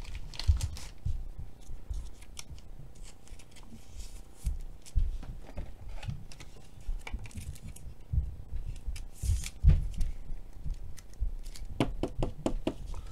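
A trading card being handled and slid into a clear plastic card holder. Irregular scraping, clicking and low thumps come from the card, the plastic and the fingers, with a brief sliding scrape a little past halfway and a run of quick clicks near the end.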